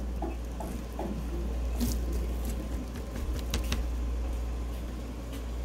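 A steady low hum of room noise, with a faint pulsing about three times a second that dies away in the first second. A few sharp clicks, around two seconds in and again near the end, are typical of a knife blade touching a plastic cutting board while cooked ribs are cut.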